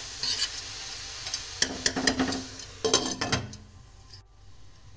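A spatula stirring and scraping chopped spinach and vegetables sautéing in a metal pot, with sizzling throughout. About three seconds in a glass lid clatters onto the pot, and the sizzle drops to a quieter, muffled hiss under the cover.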